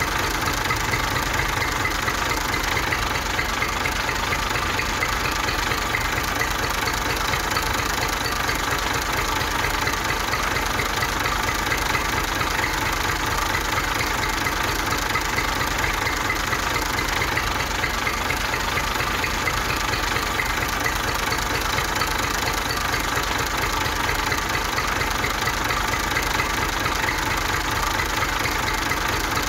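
Steady motor running with a fast, even mechanical chatter, holding the same speed and loudness throughout, as the homemade model tractor drives.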